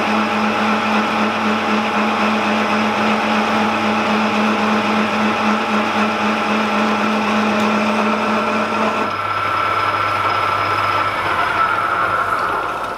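Metal lathe running under a facing cut, its tool feeding across the face of a spinning locomotive driving-wheel blank to take a 1 mm deep recessing cut: a steady motor and gear hum under the hiss of cutting. About nine seconds in the low hum drops away, and near the end the lathe is switched off and the spindle winds down with a falling whine.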